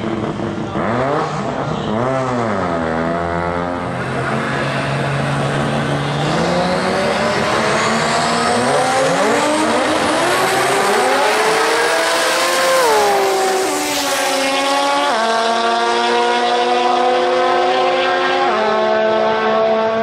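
Holden VL Calais drag car's engine revving up and down on the start line and holding a steady note, then launching on a quarter-mile pass. Its pitch climbs in repeated sweeps through the gears, drops sharply, then runs on at steadier notes that step down in pitch as the car goes away down the strip.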